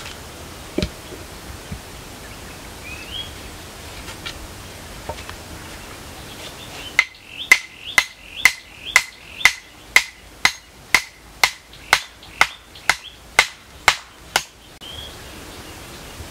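Sharp wooden knocks, about two a second for some eight seconds starting about seven seconds in, as a wooden post is pounded into the ground. A few faint knocks and a short bird chirp come before them.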